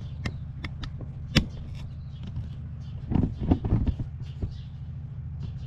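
A steady low mechanical hum, like an engine running, with a few sharp clicks near the start and a burst of heavier knocks about three seconds in, typical of hands-on work with tools.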